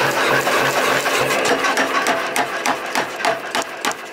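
Power hammer running and pounding a red-hot steel blank held in tongs, a steady beat of about three blows a second. The blows turn sharper and more distinct about halfway through.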